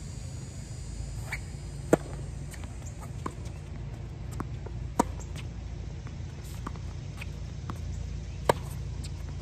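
Tennis rally: three sharp racket-on-ball strikes about three seconds apart, with fainter hits and ball bounces between them. A low steady rumble sits underneath.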